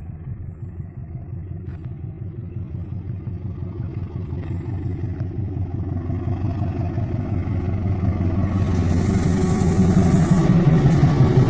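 KAI CC206 diesel-electric locomotive running with a deep, steady engine rumble that grows louder throughout. Over the last few seconds a higher rattle and hiss joins in.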